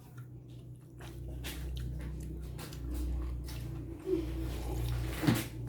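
Person chewing and biting into fried noodles close to the microphone, with small wet mouth clicks, over a low steady hum.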